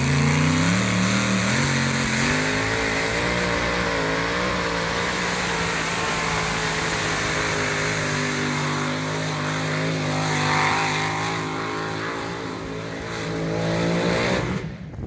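Competition pulling tractor's engine revving up under full load as it launches with the weight-transfer sled, its pitch climbing over the first couple of seconds, then held high and steady through the pull. It drops away suddenly near the end.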